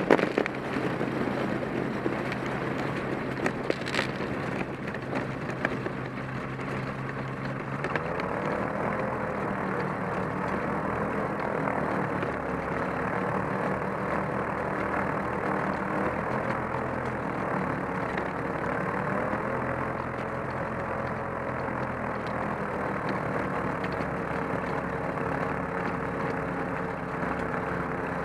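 Kolb ultralight's engine running at low power as the plane taxis over a grass strip, with rattles and knocks from the rough ground in the first few seconds. The engine note rises a little about eight seconds in and then wavers gently.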